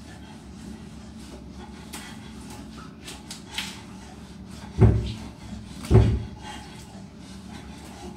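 Two loud thumps about a second apart in a small tiled bathroom, over a faint steady hum.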